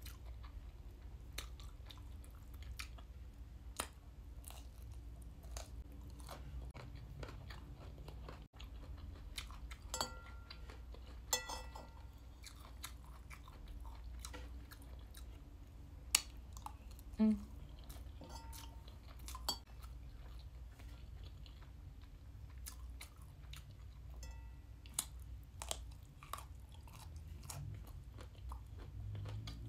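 Close-up chewing of soya mince fried rice and broccoli, with many small wet mouth clicks. A couple of short ringing clinks of a metal spoon against the ceramic bowl come about ten seconds in.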